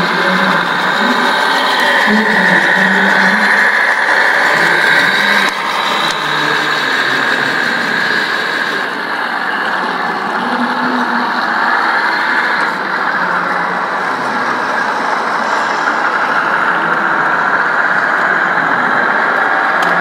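Radio-controlled model construction vehicle running: a steady motor whine with continuous mechanical noise underneath, the whine dipping in pitch and rising again about halfway through.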